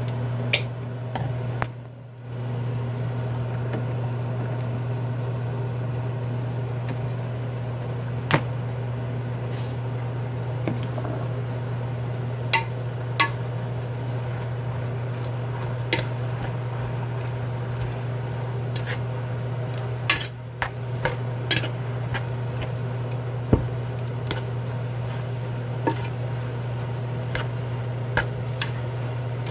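Kitchen sounds: a steady low hum with scattered sharp clinks of utensils against a pot and dishes. The hum drops out briefly about two seconds in.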